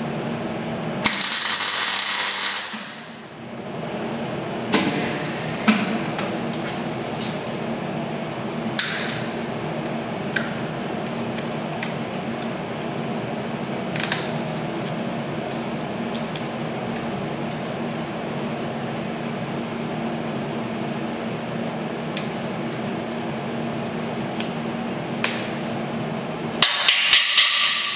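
Wire-feed welder laying short welds on steel box tubing: a hissing, crackling arc for about two seconds near the start and again, with a regular crackle, just before the end. Scattered clicks and a steady background hum in between.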